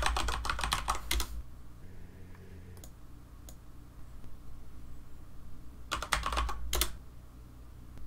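Computer keyboard typing in quick flurries of keystrokes: one at the start, a few single taps around three seconds in, and another flurry about six seconds in.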